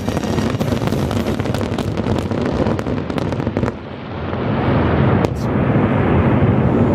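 Fireworks finale: dense, rapid bangs and crackling that stop about four seconds in. A steady rushing noise builds in their place.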